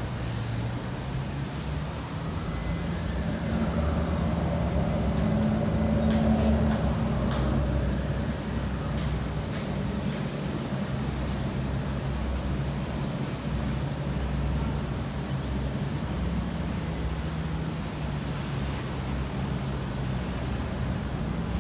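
Ferry's diesel engines running with a steady low rumble, growing louder a few seconds in and then easing back, over general harbourside background noise.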